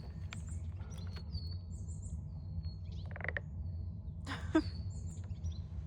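A small bird chirps repeatedly over a steady low hum, with a few short knocks and clatters of objects being handled. The loudest knock comes about four and a half seconds in.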